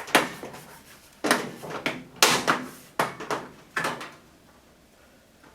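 Sharp plastic clicks and knocks from the microwave door's plastic cover being handled and fitted back into place, about eight taps over the first four seconds, stopping about four seconds in.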